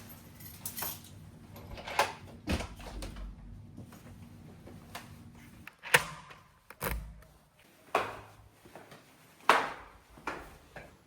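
A series of irregular knocks and clicks, with a low steady hum underneath that stops about six seconds in.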